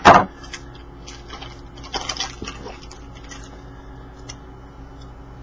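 Trading cards and pack wrapper being handled: rustling and crinkling, with a short loud crinkle at the start and another, softer burst about two seconds in, between faint clicks of cards.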